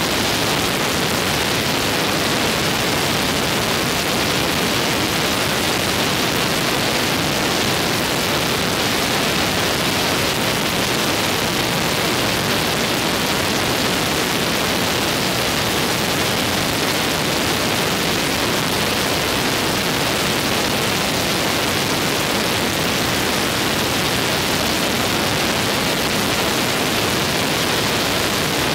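Steady, loud rush of wind over the microphone in a biplane's open cockpit during the climb after takeoff, with the plane's engine and propeller running at climb power underneath.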